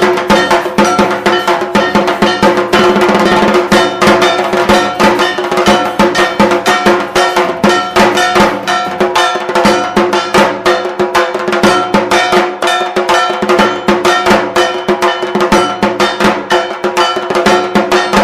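Music with a held drone under fast, even percussion strikes, several a second.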